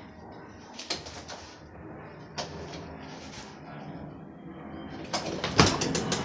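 A few light knocks as a small plastic container is handled on the floor, then near the end a quick run of loud clicks and rattles from a front door's latch and handle being worked.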